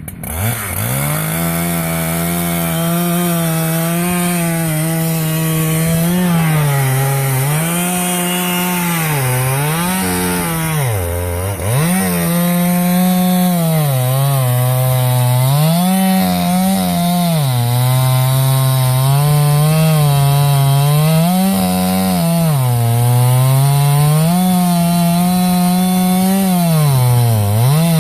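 Chainsaw engine running at high revs in an Alaska chainsaw mill, ripping a log lengthwise. Its pitch dips and recovers every two to three seconds as the chain loads up in the cut.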